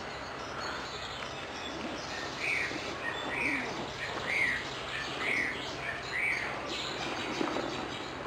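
Eurasian oystercatcher calling: a series of five piping notes about a second apart, each rising and then falling in pitch, over fainter background bird chirps.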